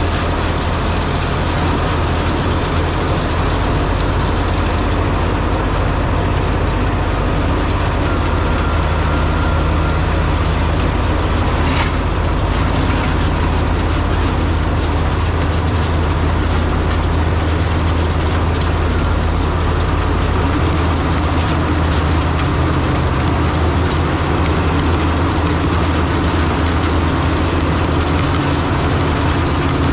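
A tractor's diesel engine running steadily, a deep, even drone with machinery noise over it.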